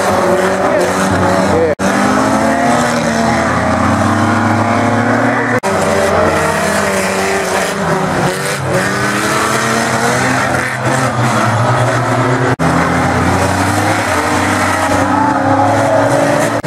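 Several banger race cars' engines revving hard together, their pitches rising and falling against each other as the cars race and jostle. The sound cuts out for an instant three times.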